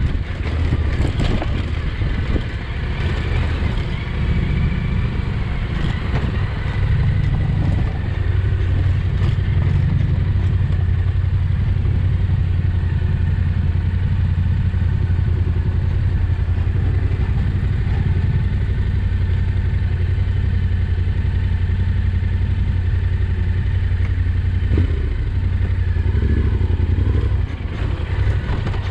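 Yamaha Ténéré 700's parallel-twin engine running steadily at low speed on a rough dirt track, with stones and the bike's parts knocking and clattering over the rocks.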